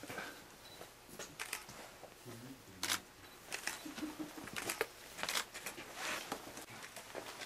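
A praying man's palms rubbing together, giving short dry rustles again and again, with a low murmured prayer a couple of times midway.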